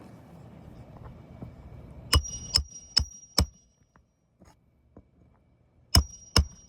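Hammer blows striking metal, four quick strikes about two seconds in and two more near the end, each with a short ringing tone.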